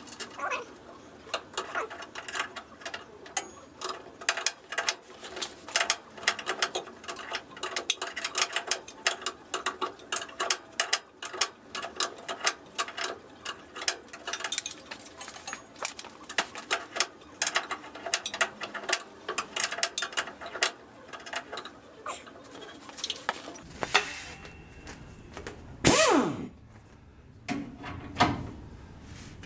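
Hand tools clicking and tapping on metal in quick, irregular clicks, several a second, much like a socket ratchet, while the front leaf spring hardware of a 1949 GMC truck is worked on. Near the end come a few louder sounds that rise and fall in pitch.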